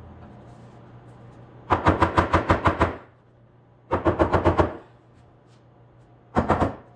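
A power tool hammering in three short bursts of rapid, evenly spaced impacts, about nine a second, the first starting nearly two seconds in.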